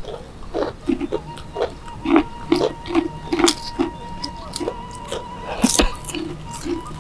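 Close-up eating sounds: people chewing and smacking their lips, with frequent short crisp crunches and clicks as they bite into food eaten by hand from banana leaves.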